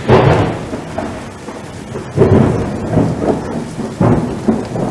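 Thunderstorm: steady rain with rolls of thunder, loudest right at the start, again about two seconds in, and again about four seconds in.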